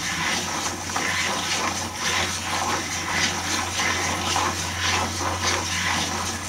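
Wooden cycloid drawing machine cranked by hand: its gears and turntable turning and the pen rubbing over the paper, a steady scratchy rustle with a low hum underneath.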